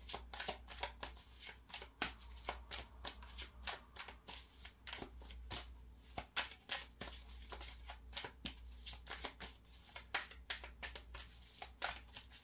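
A tarot deck being shuffled by hand: a quick, uneven run of soft card clicks and slaps.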